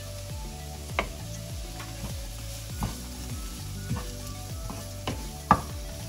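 Chopped onion sizzling in hot coconut oil in a nonstick frying pan as it is stirred with a wooden spatula, with a few sharp taps along the way.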